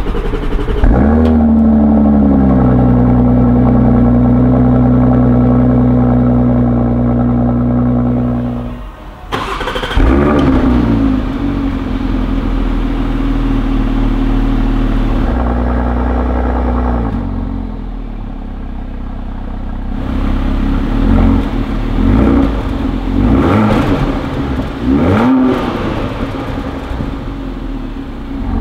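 Porsche Cayenne Coupe's 3.0-litre V6 heard at the exhaust, starting with a flare and holding a high, steady cold-start idle. About nine seconds in it cuts out and is started again, flaring and settling to a lower idle. Near the end there are several short throttle blips.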